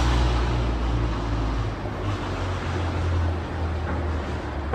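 An engine running with a steady low rumble under broad noise, its note changing about a second and a half in.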